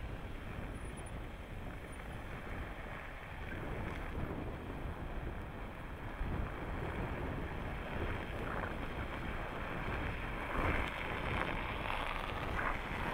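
Jeep Renegade Trailhawk driving slowly over a packed-snow course, its engine running under wind noise on the microphone. It gets louder from about three quarters of the way in as it passes close, with tyres crunching through the snow.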